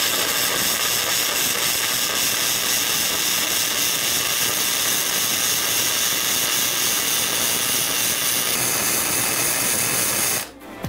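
Flux-cored wire welding arc from a Seibi EG-M100 100 V inverter semi-automatic welder at maximum voltage, running steadily as a stable arc. It cuts off suddenly near the end, as the household circuit breaker trips.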